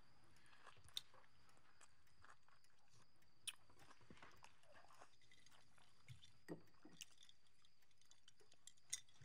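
Near silence broken by a few scattered small clinks and taps of metal cutlery against dinner plates, with faint chewing.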